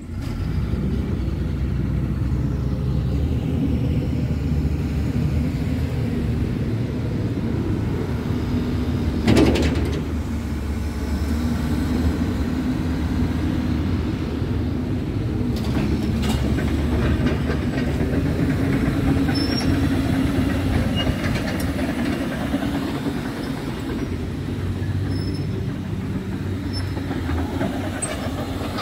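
Scania R450 tractor unit's 13-litre straight-six diesel idling steadily up close, a deep, even rumble. There is a brief louder burst of noise about nine and a half seconds in.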